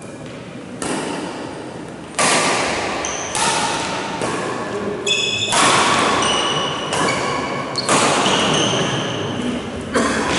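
Badminton rackets striking a shuttlecock in a rally, about seven sharp hits one to two seconds apart, each ringing on in the echo of a large hall.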